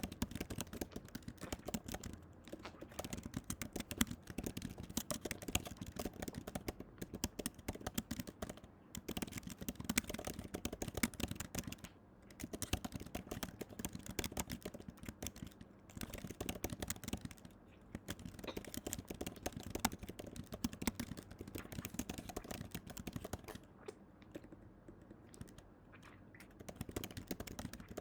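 Dense, rapid, irregular clicking and tapping in runs of several seconds, broken by a few brief lulls.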